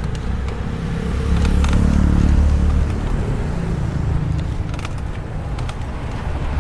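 Road traffic running steadily, with a vehicle passing louder from about a second and a half to three seconds in, plus a few faint clicks.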